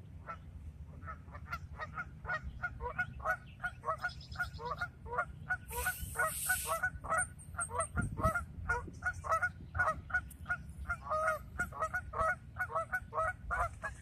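A flock of geese honking, many short calls a second overlapping one another, getting louder after about two seconds in.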